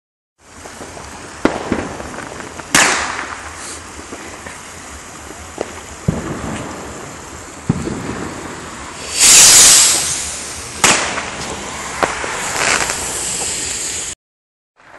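Fireworks: scattered sharp bangs of firecrackers and rockets, and a few seconds past the middle a skyrocket launching with a loud hiss, followed a little over a second later by a sharp bang.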